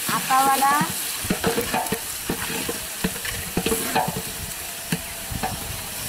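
Long metal ladle stirring a large aluminium cooking pot of steaming liquid, scraping and knocking irregularly against the pot, over a steady hiss. A short rising squeal sounds about half a second in.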